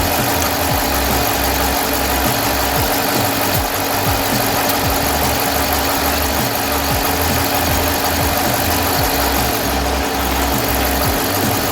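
Smittybilt 2780 12-volt portable air compressor running steadily with a fast, even pulsing as it pumps a 33-inch tire up to about 30 psi, with the truck's engine idling underneath.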